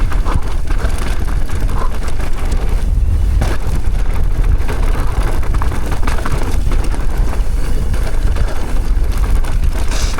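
A downhill mountain bike descending at speed: wind buffeting the microphone in a heavy low rumble, the tyres running over loose, dry dirt, and frequent clicks and rattles from the bike over bumps.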